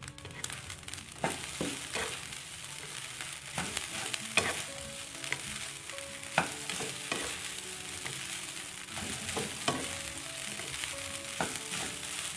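Fried rice sizzling in a nonstick wok as a spatula stirs and tosses it, with irregular scrapes and knocks of the spatula against the pan over a steady hiss.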